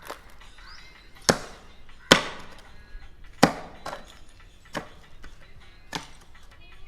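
Repeated sharp strikes of a hand tool chopping into debris, six blows about a second apart, the middle ones loudest.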